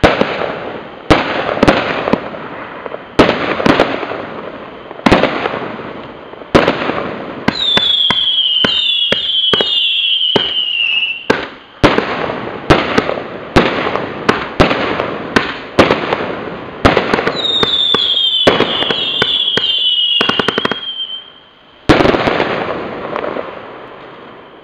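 A 35-shot consumer fireworks cake firing, roughly one sharp bang a second, each followed by crackling. Two runs of quicker shots carry falling whistles, and a last loud shot near the end leaves its crackle fading away.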